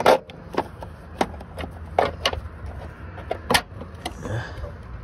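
Irregular clicks and knocks, about a dozen, as a loosened clutch master cylinder is wiggled and pulled out of its mounting with its hose still attached, its fittings and nearby lines knocking together.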